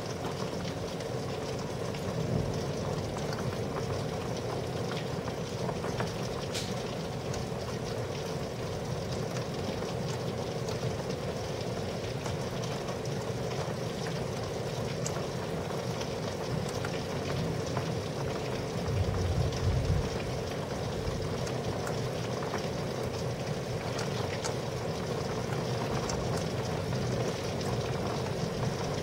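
Steady rain falling during a night thunderstorm, with scattered drip ticks and a short low rumble about two-thirds of the way through.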